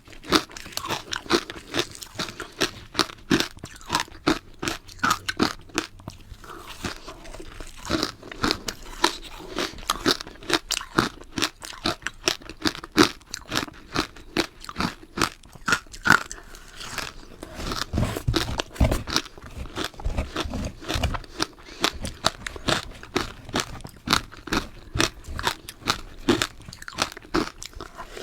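Close-miked chewing of powdery ice dusted with matcha: rapid, dense crunching bites that come in quick runs, with heavier low thuds of chewing in the middle.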